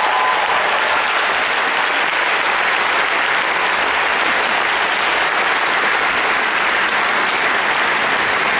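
Steady applause: many people clapping at once, without a break.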